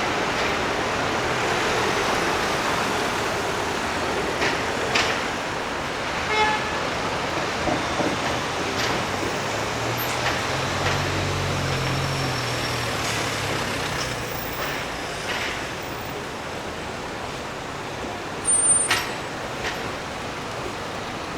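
Steady city street traffic noise of cars and buses going by, with a heavy vehicle's engine passing about ten seconds in. A short horn toot sounds about six seconds in, and a few sharp knocks break through, the loudest near the end.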